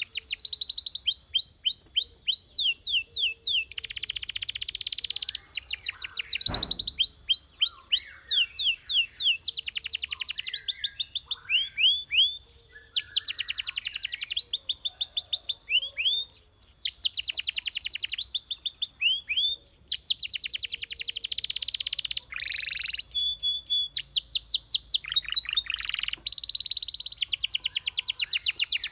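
Belgian canary singing a continuous high-pitched song made of rapid trills: runs of fast repeated notes, each lasting about a second, switching from one trill type to the next with short breaks between.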